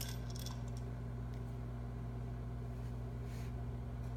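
Steady low hum of room tone with a few faint small clicks.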